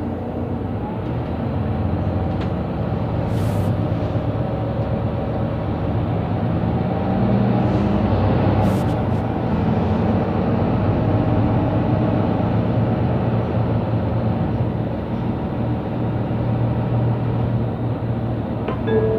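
Mercedes-Benz Citaro C2 Euro 6 city bus under way, its diesel engine running steadily with the pitch rising and falling as it pulls away and changes speed. Two short, sharp clicks come a few seconds in and near the middle.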